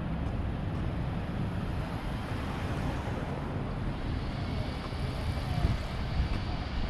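Wind rumbling on the microphone over a steady hum of city traffic, which grows a little brighter about halfway through.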